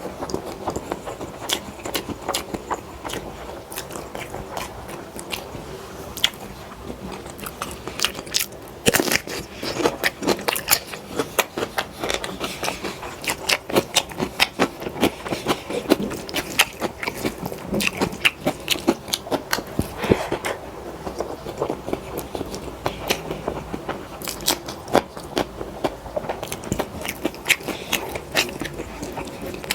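Close-miked eating: a person biting and chewing mouthfuls of dal rice, with a dense, irregular run of short wet clicks from the mouth.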